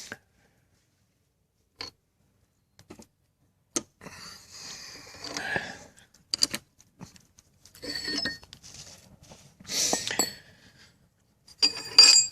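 Intermittent metal-on-metal clinks and scraping from hand tools and the seal installer's washers and bolts being handled, with a cluster of sharp clinks near the end.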